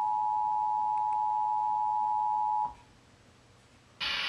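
Emergency Alert System attention signal played through a TV: the steady two-tone alarm, 853 and 960 Hz sounded together, that comes before a tornado warning. It cuts off suddenly about two and a half seconds in, and after a short near-silent gap loud hissing broadcast audio starts just before the end.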